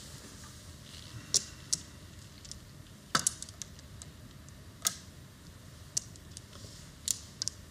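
Mahjong tiles clacking on the table as players draw and discard in turn: a scatter of sharp, irregular clicks, the loudest about three and five seconds in.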